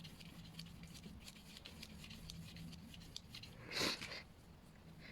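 Paintbrush scratching and dabbing gouache onto primed paper in short, quick strokes, with one brief louder rustle about four seconds in.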